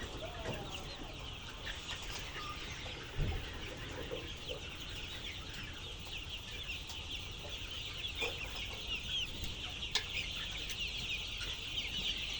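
A flock of chickens calling together, a dense steady chorus of many short high-pitched peeps overlapping one another. A short low thump about three seconds in, and a sharp click near ten seconds.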